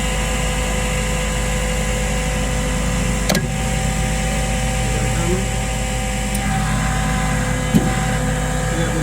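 Elgi EN7 belt-driven screw air compressor with its 7 kW electric motor running just after start-up: a steady hum with several whining tones. A sharp click about three seconds in.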